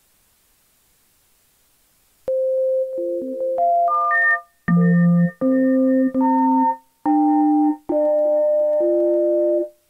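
Near silence for about two seconds, then a microtonal software sampler playing an A-440 tone sample retuned to 5-tone equal temperament: a short run of single notes that ends climbing high, then a string of held chords, each under a second, with short breaks between.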